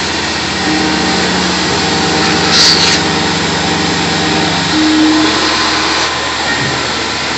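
Shop vacuum running with its nozzle held at the cutter, sucking up chips, over a Tormach PCNC 1100 CNC mill cutting a UHMW polyethylene disc. The steady drone has a brief sharper hiss near the middle, and the machine's hum changes about five seconds in.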